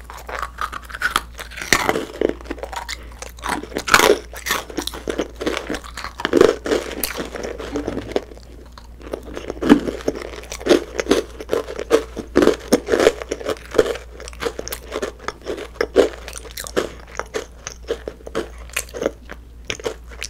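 Close-miked chewing of a macaron: the crisp meringue shell crunches in many small crackles, easing off briefly about eight seconds in before the chewing picks up again.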